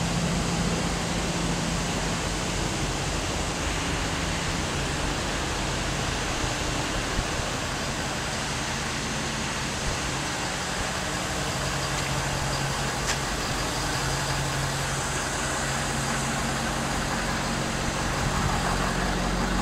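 Ford F-550's Power Stroke V8 diesel idling steadily with a low, even hum.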